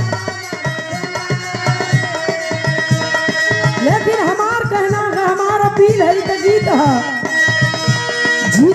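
Live Indian folk song: hand-drum strokes keep a steady beat under held chords. About four seconds in, a woman's singing voice comes in with a long, bending line. It breaks off near seven seconds and starts again just at the end.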